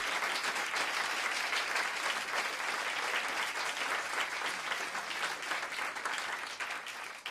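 Live audience applauding steadily, easing down near the end.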